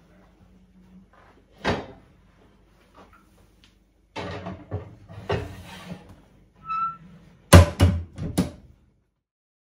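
An AGA range cooker's heavy cast-iron oven door being opened and a lidded casserole pot slid inside with knocks and scrapes, then the door shut with a few loud metal clunks near the end.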